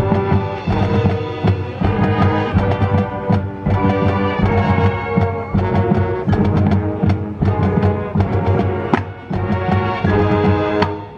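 High school marching band playing its field show: held brass chords over drums and front-ensemble mallet percussion, with frequent sharp percussion strikes.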